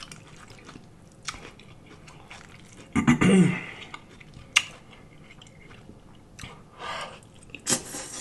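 Close-miked eating of spaghetti: a fork clicking against the dish, chewing, and a brief throaty vocal sound about three seconds in. Near the end comes a slurp as a spaghetti noodle is drawn into the mouth.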